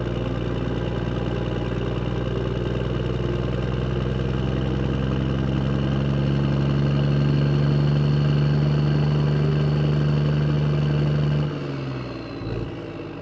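Motorbike engine running steadily while riding, growing louder about halfway through, then dropping away suddenly near the end.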